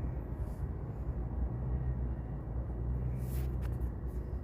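Saturn Outlook's 3.6-litre V6 idling steadily, an engine the owner is checking for a slight misfire and a suspected timing fault. There is a faint click about three seconds in.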